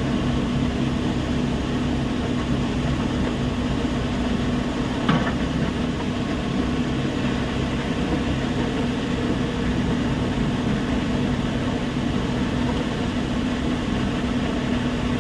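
Heavy machinery at a stone crusher plant running steadily with a constant low hum, and one sharp knock about five seconds in.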